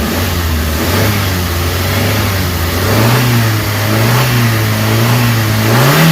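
Suzuki Carry engine being revved with the accelerator: the engine note steps up about a second in and again about three seconds in, then rises sharply near the end and drops back. After its XADO treatment the engine revs without shaking and is very responsive.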